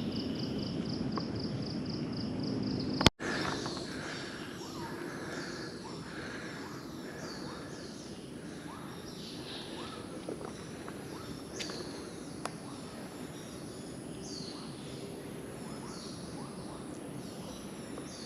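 Forest wildlife: an insect trilling in fast, even pulses for about the first three seconds, then, after a sharp click, many short falling bird calls over a steady high insect whine.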